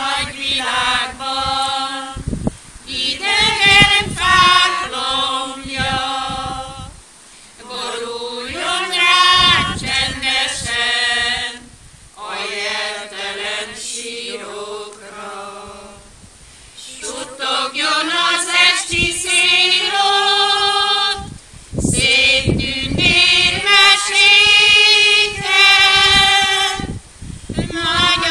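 A small group of mostly women's voices singing a slow Hungarian memorial song together without accompaniment, in phrases separated by short pauses for breath.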